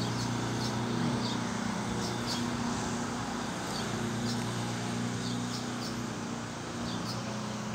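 A steady mechanical hum from a running motor, with brief high bird chirps scattered through it every second or so.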